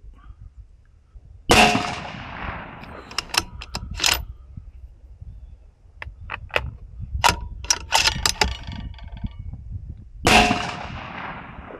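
A 6BR rifle is fired twice, about nine seconds apart. Each shot is a sharp crack with a long fading echo. Between the shots come a run of short metallic clicks and clacks as the rifle is reloaded from the ammo box.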